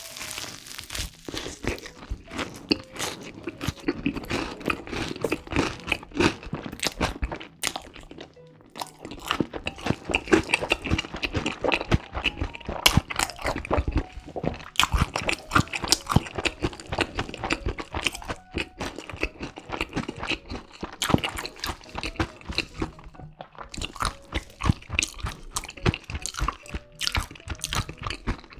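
Close-miked crunching and chewing of a crispy breaded pork cutlet coated in crushed Flamin' Hot Cheetos, bite after bite, with short lulls between mouthfuls.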